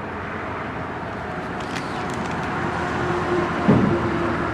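Steady road traffic noise that swells as a vehicle goes by. Near the end a steady hum comes in, with a brief dull thump just after it.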